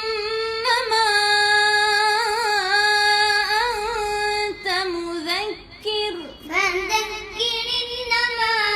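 A high-pitched voice chanting Quranic recitation (tajweed) in long, ornamented held notes, with short breaks for breath around five and six seconds in.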